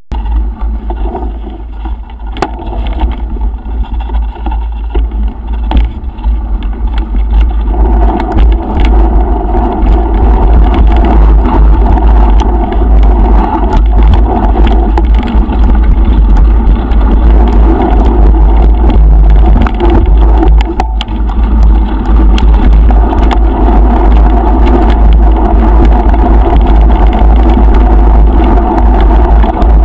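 Wind buffeting the action camera's microphone over the rumble and rattle of a mountain bike riding fast along a dirt forest trail, with many small knocks from the bumps. It grows louder about eight seconds in as the speed picks up.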